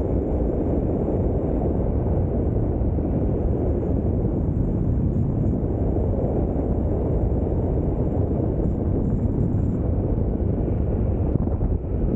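Steady wind buffeting the microphone, mixed with the rumble of an electric mountain board rolling along asphalt.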